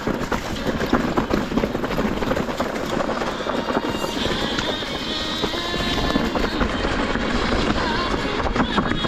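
Mountain bike descending a rough downhill trail: continuous rattling of the bike and tyres over dirt and rocks, with wind noise on the microphone.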